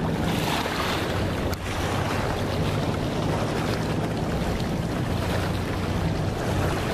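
Wind buffeting the phone's microphone, a steady rushing noise with a low hum underneath.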